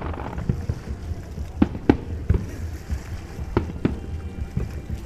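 Aerial firework shells bursting: about five sharp bangs, mostly in pairs, from about a second and a half in, over a continuous low rumble.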